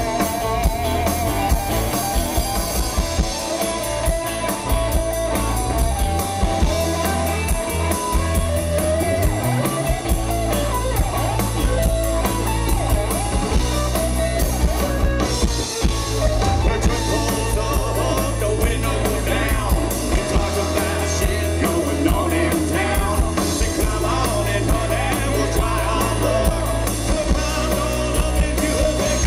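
A live country-rock band playing a song, with drum kit, electric guitar and bass and a voice singing over them.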